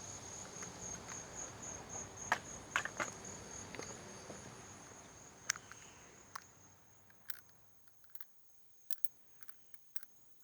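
A steady high-pitched trill over low background noise that fades away about two-thirds of the way through, with scattered light clicks.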